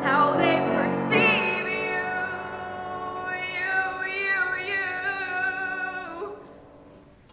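Solo female voice singing a musical-theatre ballad over piano, holding long notes with vibrato. The phrase ends about six seconds in and fades away in the hall's echo.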